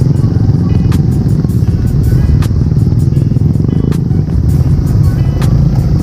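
Background music with a regular beat laid over the steady low rumble of a motorcycle riding along.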